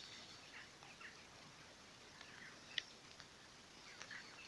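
Near silence: faint open-field ambience with a few faint, scattered bird chirps and one short click a little after the middle.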